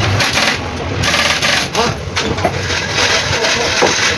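Mitsubishi Pajero's 4M40 four-cylinder diesel engine running steadily.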